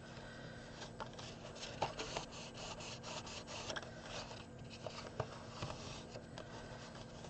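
Fingers rubbing and pressing a strip of patterned card around a card box, scoring the fold by hand: faint, repeated papery rubbing strokes.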